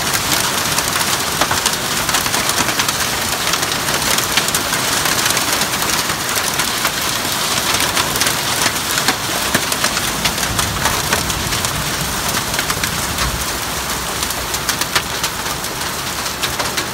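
Heavy rain pouring steadily, with a dense patter of sharp drop impacts.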